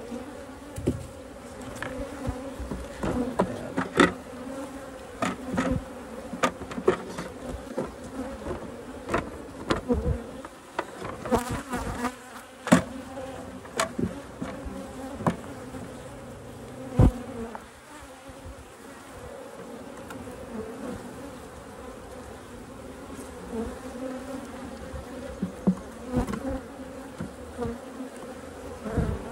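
A colony of honey bees humming steadily in an opened hive. Frequent sharp clicks and knocks run through it, densest in the first half, from the wooden hive parts being handled.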